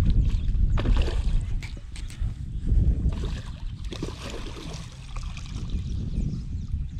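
Wind rumbling on the microphone, with water splashing and scattered small knocks.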